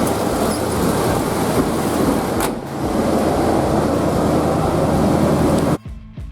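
1984 Ford F-150 pickup under way: steady engine and road noise, with a single click about two and a half seconds in. Near the end it cuts off suddenly to music with a beat.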